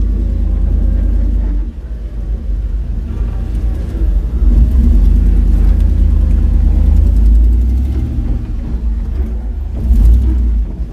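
Jeep Wrangler YJ's engine running as it crawls along an off-road trail: a steady low rumble that eases about two seconds in and rises again from about four seconds, with a knock near the end.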